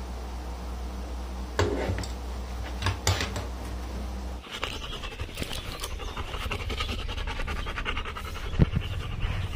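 A Labrador panting rapidly and steadily, starting about halfway through. Before that, a few clicks and rustles as a padded nylon dog harness with plastic buckles is handled over a low steady hum, and there is a single thump near the end.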